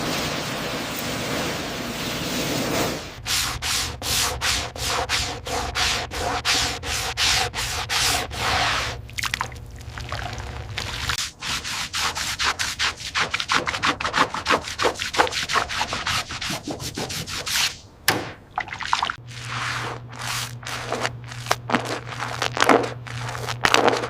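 A steady spray hiss, then from about three seconds in quick repeated scrubbing strokes, several a second, rubbing over the car's foamed, grimy bodywork. A low steady hum runs beneath parts of it.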